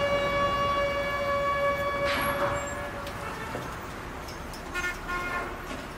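A single steady held tone, unchanging in pitch, that stops about three seconds in. Street traffic follows, with a couple of short toots near the end.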